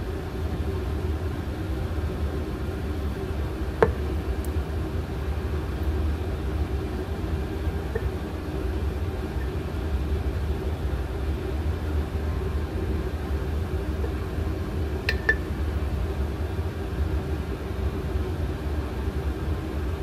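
Steady low background hum, with two sharp glassy clicks, one about four seconds in and one about fifteen seconds in, as a glass jar of sourdough starter is handled and set down on a stone counter.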